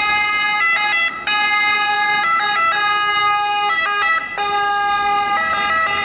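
Italian ambulance's two-tone siren, switching back and forth between a high and a low note.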